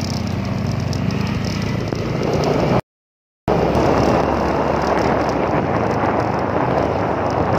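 Motorcycle engine running and wind rushing over the phone's microphone while riding on the motorcycle. The sound cuts out completely for about half a second midway, and the wind noise is heavier after the break.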